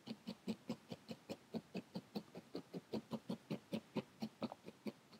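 Felting needle stabbed rapidly and repeatedly through a roll of wool roving into a foam felting pad, a steady rhythm of soft pokes about five a second, compacting the wool.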